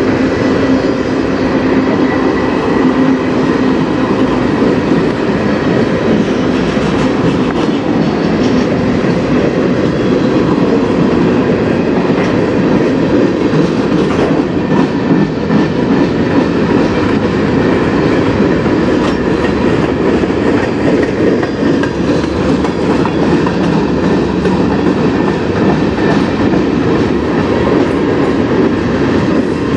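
Freight cars of a manifest train rolling past close by: a steady rumble and rattle of steel wheels on rail, with scattered clicks of the wheels crossing rail joints.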